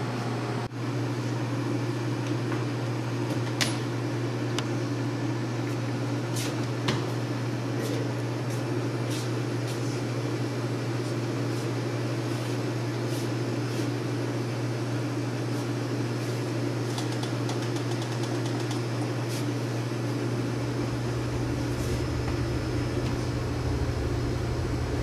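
Steady mechanical hum of café appliances and ventilation, with a few faint clicks and knocks of things being handled.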